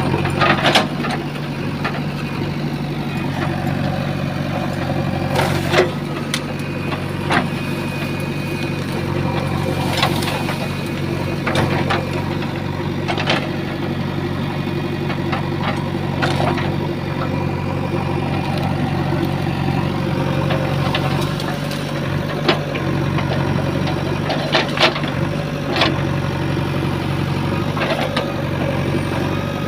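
JCB 3DX backhoe loader's diesel engine running steadily, with short metallic clanks every few seconds.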